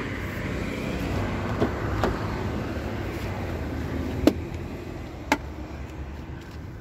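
Hyundai Elantra's 1.6-litre turbocharged four-cylinder engine idling with a steady low hum. A few sharp knocks come from a plastic snow brush being handled at the car.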